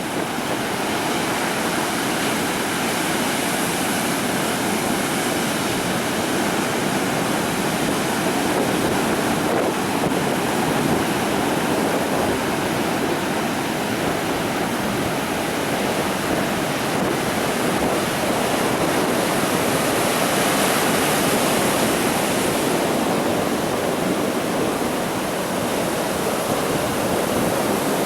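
Sea surf washing onto a beach: a steady rush of waves that swells a little about twenty seconds in.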